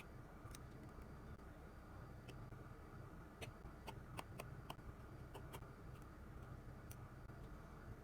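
Faint, light clicks and ticks of small tools and parts being handled on a phone under repair, about ten in all, mostly bunched around the middle, over a low steady hum.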